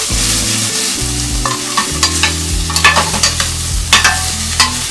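Shell-on shrimp sizzling as they fry in oil in a stainless steel sauté pan, crisping their shells, while a metal spoon stirs them, scraping and clicking against the pan many times.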